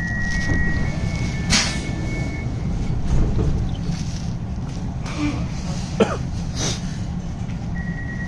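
Tram running, a steady low rumble, with high electronic tones in the first couple of seconds and again starting near the end. A few short knocks or cough-like sounds are heard over it.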